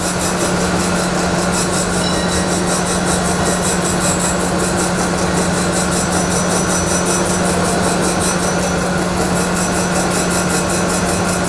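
Cylindrical (OD) grinder running, its wheel grinding a spinning steel shaft under flood coolant as the table traverses across the part: a steady low hum with an even hiss over it. It is a light finishing cut taking off about four thousandths a side, with the stock coming off at the wheel's right-hand corner.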